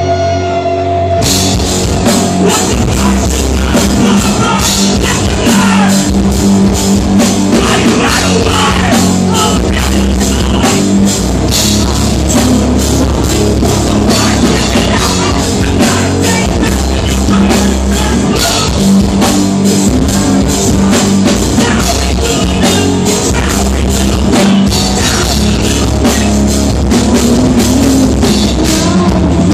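Rock band playing live with electric guitars, bass guitar and drum kit, loud through the venue's PA. Held tones open it, and the full band comes in about a second in.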